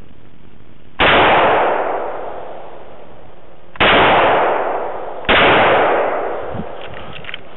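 Three shots from an FN FS2000 5.56 mm bullpup rifle: one about a second in, the next nearly three seconds later, and a third about a second and a half after that. Each sharp report trails off over about a second.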